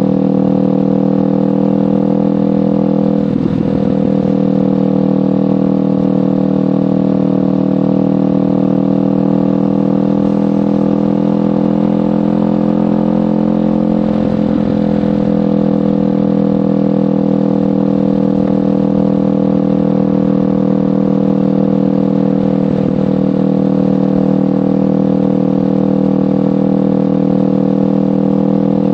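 Kawasaki Ninja 500's parallel-twin engine through a LeoVince GP Corsa Evo exhaust, running at a fairly steady speed while riding. The note rises and falls a little, with three short breaks in it.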